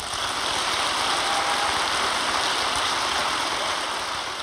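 Audience applauding, swelling in just after the speaker's thanks, holding steady and then slowly tapering near the end.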